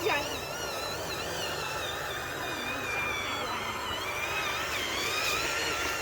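Small electric motor and gearbox of a radio-controlled construction truck whining, its pitch wavering up and down continuously with the throttle. A sharp falling whine comes right at the start.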